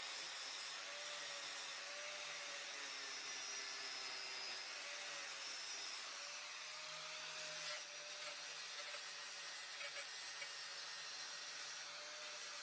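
Angle grinder grinding a metal exhaust pipe fitting. Steady grinding with a motor tone that dips and wavers as the disc is pressed on and eased off.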